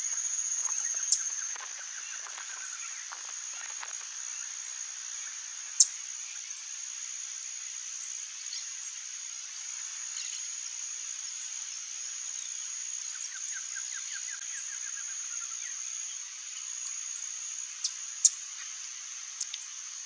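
Steady high-pitched insect drone, with a few sharp clicks, the loudest near 6 and 18 seconds in. Two faint series of quick chirps are heard, about two seconds in and again about thirteen seconds in.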